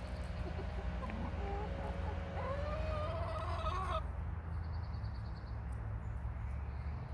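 Hens clucking, a few short calls followed by a longer drawn-out call that rises and falls, over a steady low rumble.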